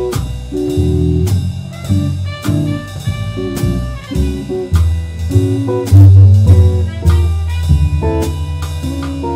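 Small jazz combo playing live: trumpet over an upright bass walking through low notes about twice a second, a drum kit keeping time and an electric guitar.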